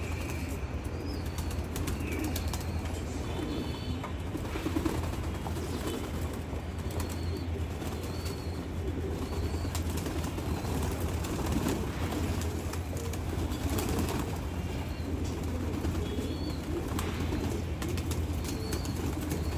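A flock of domestic racing pigeons cooing together, with scattered bursts of wing flapping as they bathe. A steady low hum runs underneath.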